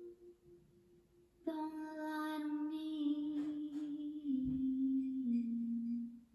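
A woman singing long held notes, starting about a second and a half in and stepping down in pitch twice, heard from a television's speaker.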